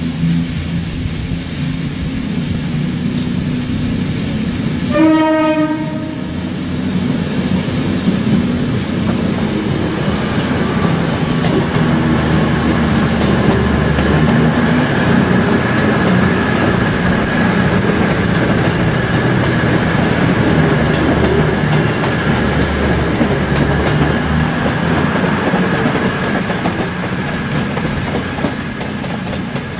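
A train running at a station platform with a steady rumble of engine and wheels on rails, and a short single-note horn blast about five seconds in.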